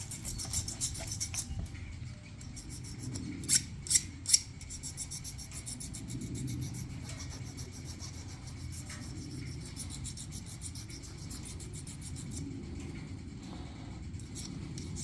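A metal washer being scrubbed clean by hand: steady scratchy rubbing, broken by three quick sharp clicks about three and a half to four and a half seconds in.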